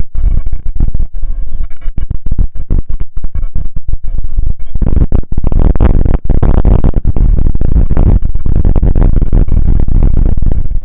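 Church bells pealing, recorded so loud that the sound distorts and keeps cutting out for split seconds. About halfway in, a loud rushing rumble rises and swamps the bell tones.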